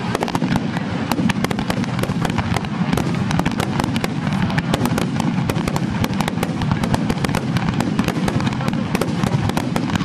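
Rapid-fire barrage of aerial fireworks shells bursting overhead at close range. Many sharp bangs and crackles each second overlap into a loud, unbroken din over a low rumble.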